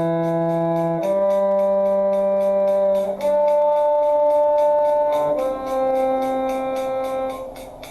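A musical instrument holding four notes in turn, E, G, D and C, each about two seconds long, as a shifting drill: the D is played as a harmonic after a shift up the D string, and the final C fades near the end.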